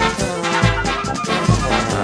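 Instrumental music led by brass, over a recurring low beat.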